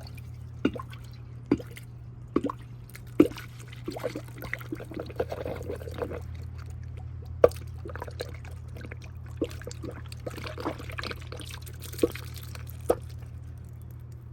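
Irregular sharp clinks and knocks of parts and tools being handled during engine reassembly, over a steady low hum.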